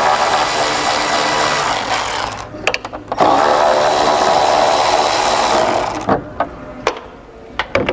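Cordless electric ratchet whirring as it backs out the bolts holding a coolant overflow bottle: one run of about two seconds, a short pause with a few clicks, then a second run of about two and a half seconds. Near the end, only light clicks and handling noises.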